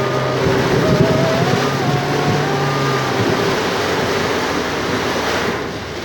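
Heavy rain pouring in strong wind, a dense steady rush. A wavering whistling tone runs through it, and a low steady hum stops about three seconds in.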